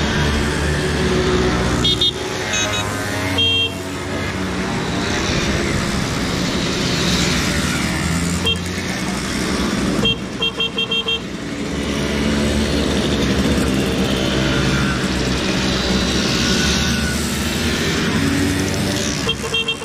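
A procession of Simson two-stroke mopeds, motorcycles and scooters riding past one after another, each engine swelling and fading as it goes by. Short horn toots sound several times, with a quick run of four or so toots about ten seconds in.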